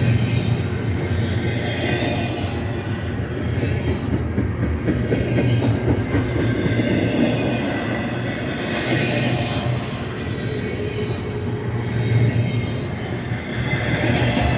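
BNSF double-stack intermodal well cars rolling past: steady rumble and clatter of steel wheels on rail.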